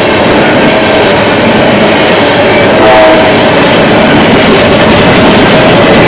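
Freight train of loaded tank cars passing close by: steel wheels rolling on the rails in a loud, continuous rumble and clatter, with a steady ringing tone running through it.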